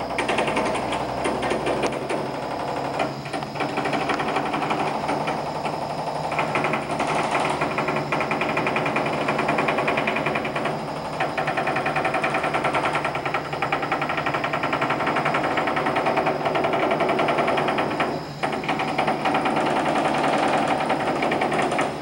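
Rapid, continuous hammering as dried concrete is chipped out of a concrete mixer truck's steel drum, loud and rattling, with brief pauses about 3, 11 and 18 seconds in.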